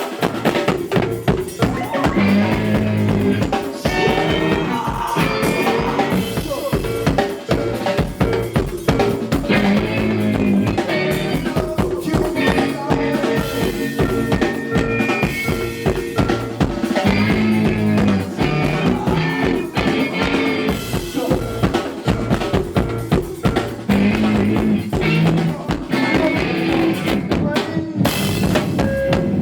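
A band playing, driven by fast, busy drum-kit playing with bass drum and snare, over repeating pitched low and mid-range instrument lines.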